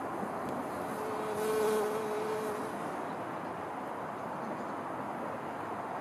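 A flying insect buzzes close past the microphone, a humming drone that starts about a second in and fades out after about a second and a half, over a steady outdoor background hiss.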